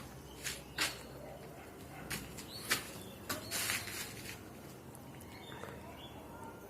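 A handful of sharp, irregular knocks or taps over a steady low background, bunched in the first few seconds, one of them a longer scrape.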